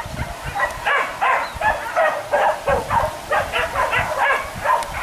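Pack of hunting dogs yelping and barking in a rapid, continuous run, about three yelps a second, the cry of dogs on a wild-boar chase.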